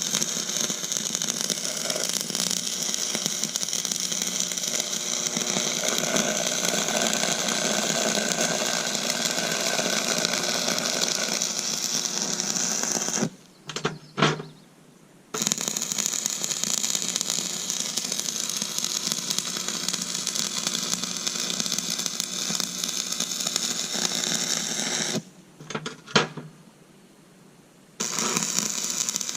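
A power tool running steadily on steel, stopping twice for a couple of seconds, with a few sharp clicks in each break.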